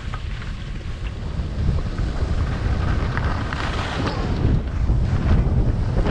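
Wind buffeting a GoPro's microphone during a fast ski descent, with the hiss and scrape of skis on snow. It grows louder as the speed builds, with a few sharper scrapes in the middle.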